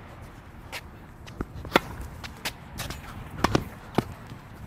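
Tennis ball hit by rackets and bouncing on a hard court, a run of sharp pops with the loudest about two seconds in, mixed with the player's shoes striking the court as he runs forward.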